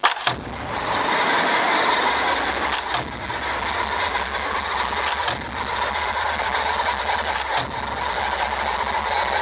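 A horror-film clip's soundtrack playing over the room's speakers: a loud, dense, steady noise that cuts in abruptly, broken by a few sharp knocks.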